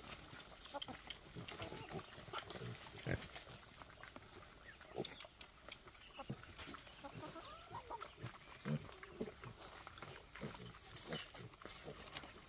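Wild boars and boar piglets grunting now and then while they feed, with scattered short calls and small scuffling clicks among them.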